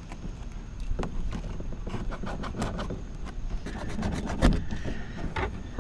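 Irregular clicks and knocks of hard parts being handled and fitted, over a low rumble.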